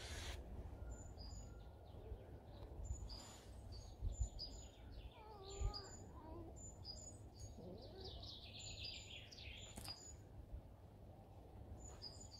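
Faint birdsong: small birds chirping, short high notes repeating over and over, with a couple of soft bumps about four and six seconds in.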